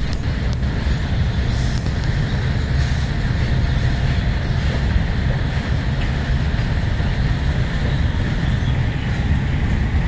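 Freight train of new open-top box wagons rolling past: a steady low rumble of wheels on rail, with a few faint clicks.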